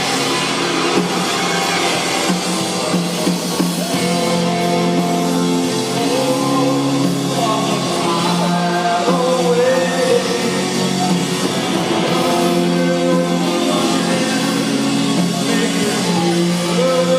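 Rock band playing live, with singing over guitar and drums.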